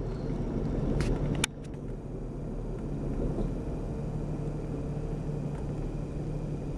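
Low, steady hum of a car heard from inside the cabin. Two sharp clicks come in the first second and a half, and then the hum drops a little quieter and runs on evenly.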